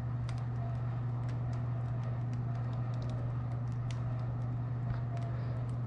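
Crust of a freshly baked no-knead loaf crackling as it cools: many faint, irregular ticks and pops, the sound of a really crispy crust as the steam inside contracts. A steady low hum runs underneath.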